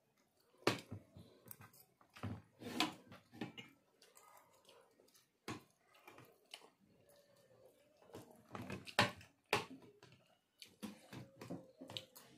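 Irregular small clicks and taps of forks against plates as people eat, with the sharpest knocks about nine seconds in.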